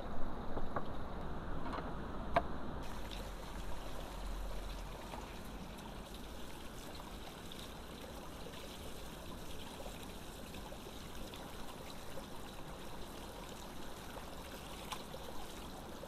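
Water running steadily from a bamboo pipe spout and splashing onto raw chicken pieces in a woven bamboo basket as they are rinsed by hand. A few light clicks in the first couple of seconds.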